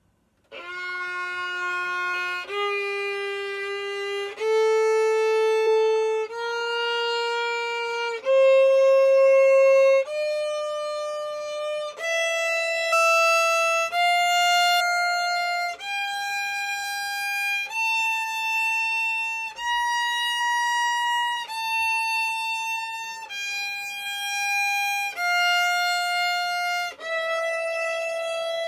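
Violin playing a slow F major scale, one long bowed note about every two seconds, starting about half a second in. It climbs step by step from the low F past the octave and then comes back down.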